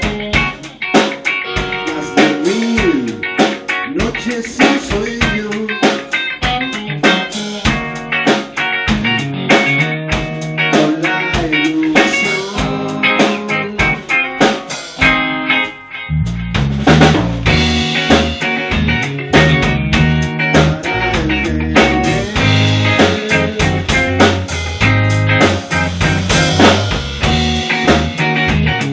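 Rock band playing an instrumental passage with electric guitars and a drum kit. After a brief break about halfway through, a much heavier low end comes in under the guitars and drums.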